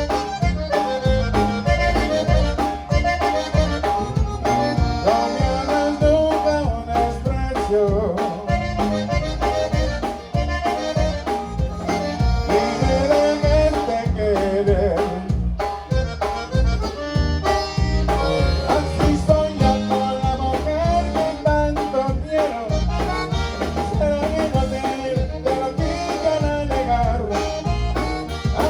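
Live conjunto band playing an instrumental passage, a button accordion carrying the melody over a steady beat.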